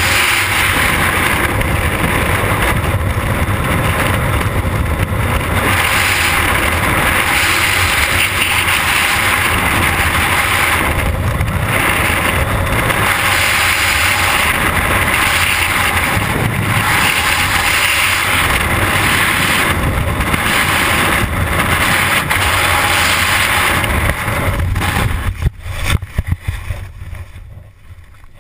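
Freefall wind rushing steadily and loudly over the camera's microphone. About 25 seconds in the parachute opens: a few short snaps, then the rush drops away to a much quieter hiss under canopy.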